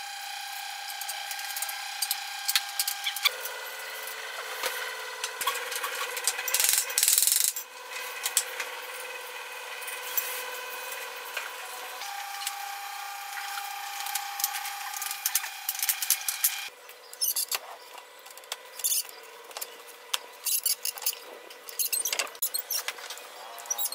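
Power drill motor running in long steady stretches, its whine shifting pitch a few times, as screws are driven into the wooden frame of a folding drying rack. In the last several seconds the drill stops and sharp clicks and knocks of wooden rails being handled take over.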